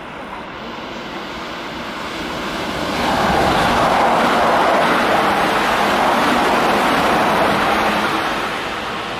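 Keihan electric commuter train running through at speed, wheel and rail noise swelling about three seconds in. It holds steady as the cars pass close by, then eases near the end.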